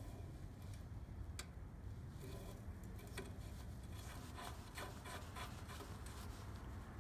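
Faint clicks and rubbing of a brass Appion valve core removal tool being handled and fitted onto a heat pump's Schrader service port: a few separate small clicks, then a quick cluster of them about two-thirds of the way through.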